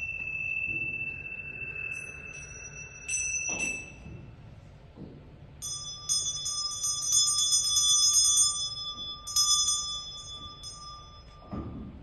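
Small Tibetan bowls struck and left ringing with clear, high bell-like tones. Two strikes come about three seconds in, then a quick run of many strikes for about five seconds, then one more strike near the end.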